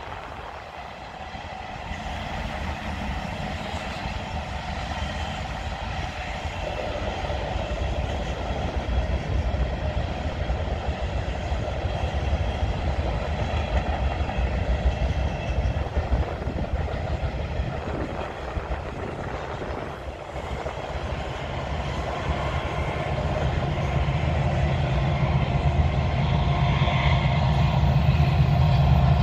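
A Union Pacific freight train's tank cars and covered hoppers rolling past on the rails, a steady rumble of wheels on track. It grows louder over the last several seconds as a low, steady hum joins in.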